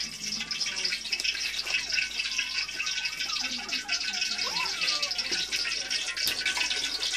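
Hot oil sizzling steadily in a wok over a wood fire, with voices talking underneath.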